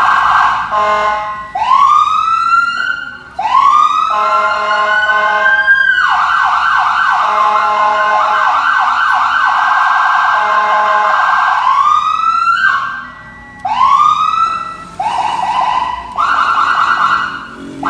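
Whelen electronic siren through a Whelen SA314 speaker, cycling through its tones. Rising wail sweeps alternate with fast yelp and rapid warble patterns, changing every couple of seconds with brief breaks between tones.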